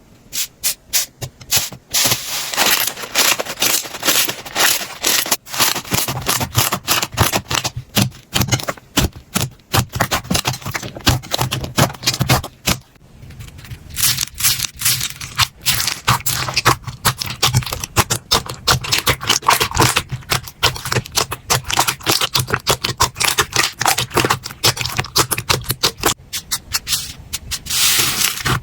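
Slime being pressed and worked, giving a dense run of quick crackling clicks and pops, with a short quieter pause about halfway through.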